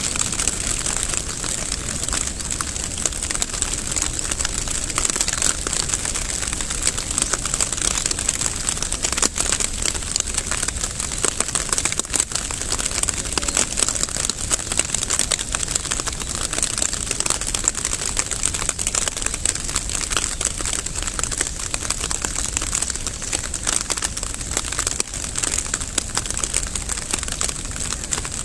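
Steady rain falling, a dense, even patter of fine crackling drops.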